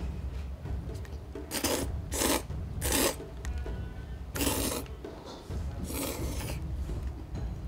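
Thin ramen noodles being slurped: five short, hissing slurps a second or so apart, the last one a little longer.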